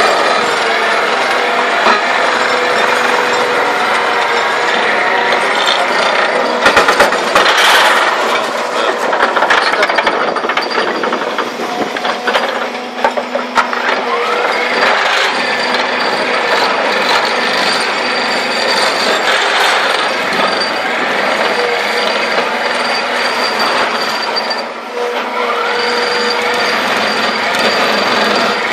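SVR30 vibro ripper on an excavator arm, vibrating at high speed as it breaks into rock, giving a loud, steady rattling buzz with a constant hum running under it. A burst of sharp cracks comes about seven seconds in, and the noise briefly eases twice.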